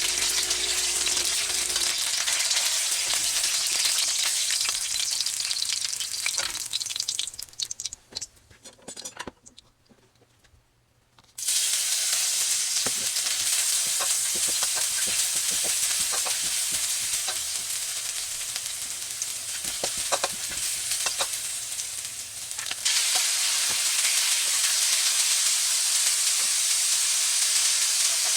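Chicken pieces sizzling in hot oil in a pan, with frequent clicks of a utensil stirring. The sizzle dies away to near silence about a third of the way in, comes back a few seconds later, and grows louder near the end.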